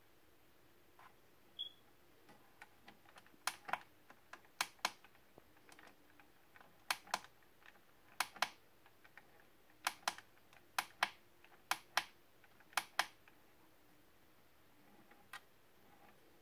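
Small plastic switch or push button on a 1/24 scale die-cast police model clicked repeatedly, mostly as sharp double clicks, about eight in a row, with fainter clicks before and after. The presses cycle the model's emergency light patterns.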